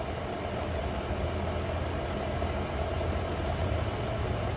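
Butane torch lighter burning with a steady jet hiss as it is held to a cigar to light it, over a low steady hum.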